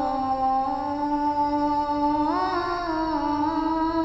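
A boy's voice chanting the azan, the Muslim call to prayer, holding the long drawn-out melodic note of the phrase 'Ashhadu anna Muhammadan'. The note steps up in pitch a little past halfway and comes back down.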